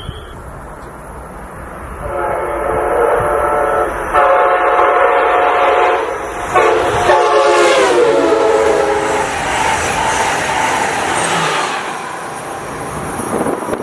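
Amtrak locomotive's five-chime air horn sounding in three long blasts. During the last blast the chord drops in pitch as the train goes by. The noise of the passing train continues afterwards.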